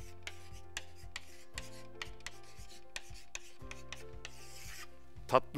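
Writing on a small board: short, irregular rubbing and scratching strokes, one longer stroke near the end, over quiet background music with held low notes.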